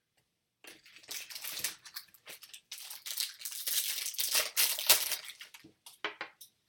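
Foil wrapper of a Bowman Chrome baseball card pack crinkling and crumpling as the pack is torn open. The rustle starts just under a second in and dies away near the end.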